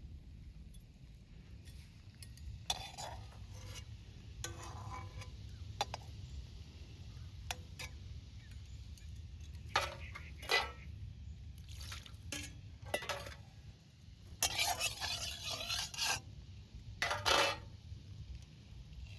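Metal utensil scraping and clinking in a cooking pot, in several short strokes with a longer scrape near the end, over a steady low background rumble.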